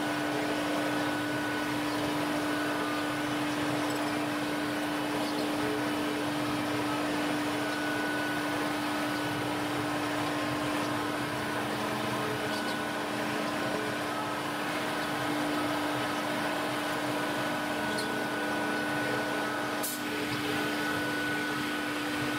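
Steady drone of workshop suction equipment running, with one low hum held throughout. A single short click sounds near the end.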